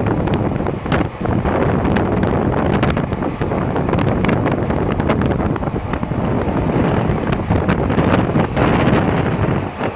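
Wind buffeting the microphone at a moving train's open window, over the steady rumble of the running train, with scattered sharp clicks throughout.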